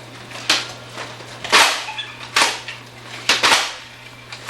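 Nerf foam-arrow blasters being fired, about five sharp pops at uneven intervals, over a steady low electrical hum.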